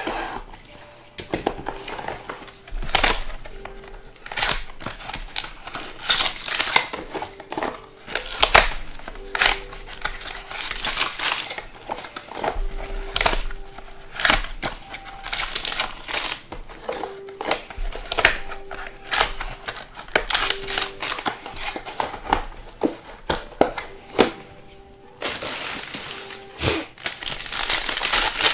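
Trading-card packaging being cut and torn open by hand: plastic wrap and cardboard of a Topps Museum Collection box rustling and crinkling, with many sharp clicks. Near the end a foil-wrapped pack is torn open, a dense, continuous crinkling.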